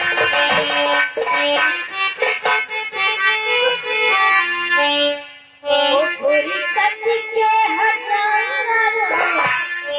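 Music with a sustained melody on several pitched notes, which drops out briefly a little past the middle and then resumes.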